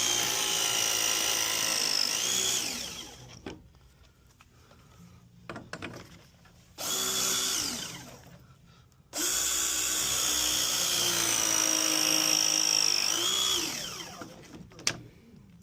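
Handheld power drill motor running in three bursts: a long run that winds down about two and a half seconds in, a brief spin about seven seconds in, and a longer run from about nine seconds that speeds up slightly before winding down. A few light clicks follow near the end.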